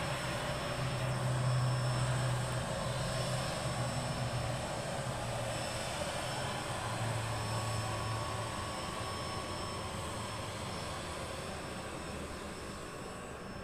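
Jet airliner taking off in the distance, heard through the terminal glass: a steady engine noise with a low hum that slowly fades as the plane rolls away and climbs out.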